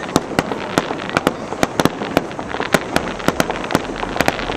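Aerial fireworks shells bursting in a rapid, irregular run of sharp bangs, about three or four a second.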